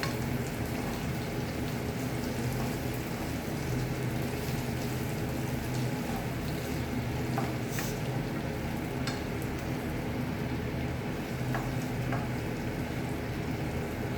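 Chopped tomatoes frying in hot oil in a pan with a steady sizzle while being stirred, with a few light clicks of the stirring spoon against the pan.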